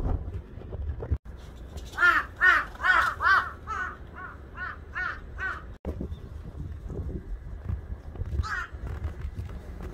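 Crow cawing: a quick run of about ten caws, roughly three a second, starting about two seconds in, then a single caw near the end.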